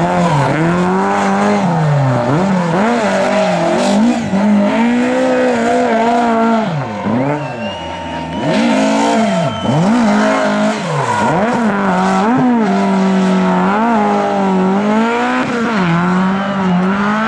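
Lada race cars' four-cylinder engines at racing revs, the pitch dropping and climbing again many times as they lift, shift and accelerate through corners, with more than one car heard at once. A thin, high tyre squeal is heard about halfway through.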